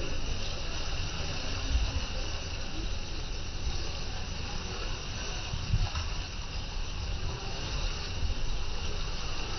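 Water rushing and splashing along the hull of a moving boat, a steady hiss with an uneven low rumble underneath.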